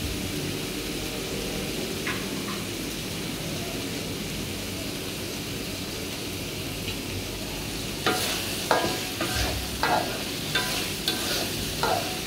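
Sambal tumis chili-and-tomato paste frying in oil in a wok, a steady sizzling hiss as it cooks down towards fragrant. From about eight seconds in, a metal spoon scrapes and clinks against the wok as the paste is stirred.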